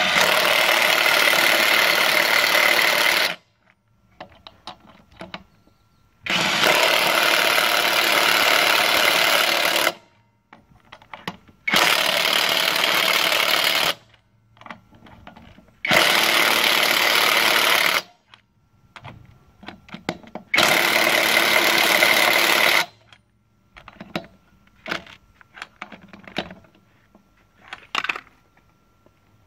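AutoJare 20 V brushless 1/2-inch cordless impact wrench tightening lug nuts onto a wheel, running in five bursts of two to four seconds each. Small clicks and rattles of the socket and nuts are heard between the bursts.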